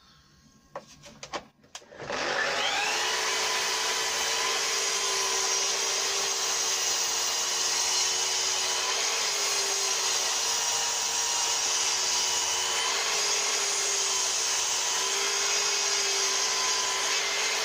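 Festool mitre saw motor starting about two seconds in and running through a long, slow cut in a thick, twisted rough-sawn softwood board. Its pitch dips slightly now and then as the blade takes the load, and it winds down at the very end. A few light knocks come before it starts.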